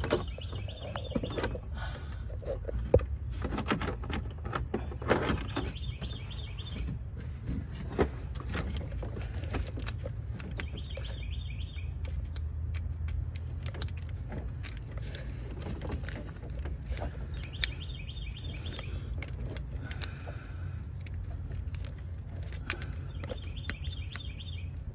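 Scattered clicks and clinks of parts and tools being handled in a car's engine bay, over a steady low rumble. A bird chirps in short rapid phrases about every six seconds.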